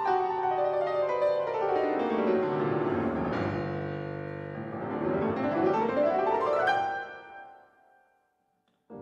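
Background piano music: a fast run of notes falls for about three seconds, then climbs back up, and dies away near the end.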